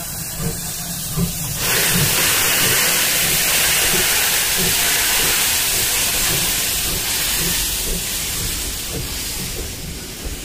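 C58 steam locomotive moving slowly past, with regular low chuffs throughout. A loud hiss of steam starts suddenly about two seconds in and fades near the end.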